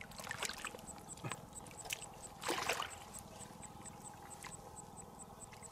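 Legs sloshing and splashing in a shallow pool of muddy water, in scattered short splashes, with a louder splash about two and a half seconds in.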